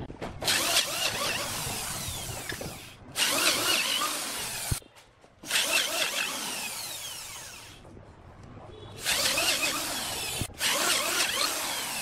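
Corded electric hand drill boring into the end grain of a large log, running in about five bursts of one to three seconds with short pauses between, its whine falling in pitch within each run.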